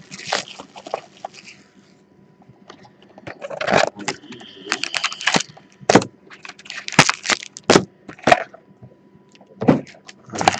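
Clear cellophane shrink wrap crinkling and crackling in irregular bursts as it is peeled off a trading-card box and crumpled by hand, with short pauses between handfuls.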